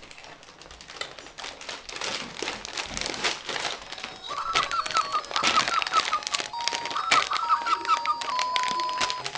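A baby's hands crinkling a plastic snack pouch and knocking the toys on a baby activity seat, with an electronic toy playing a short warbling tune and steady beeps from about four seconds in.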